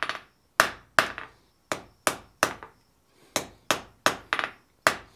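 Blacksmith's hand hammer striking a dull-red steel bar on an anvil: a run of sharp, ringing blows, about two to three a second, with a brief pause a little past halfway. These are light smoothing blows at low heat, with no real forging.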